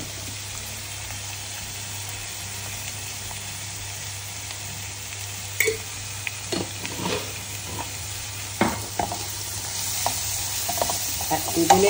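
Chopped onions, green chillies and curry leaves sizzling in coconut oil in a nonstick pan. From about halfway through, a wooden spatula stirs and scrapes them against the pan with a few sharp knocks. The sizzle grows louder near the end.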